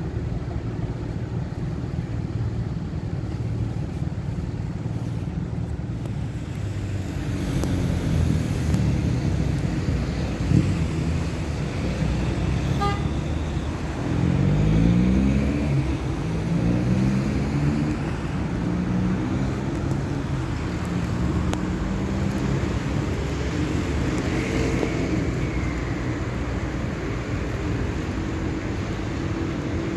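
Road traffic: a steady rumble of cars going by, with a vehicle passing close about halfway through.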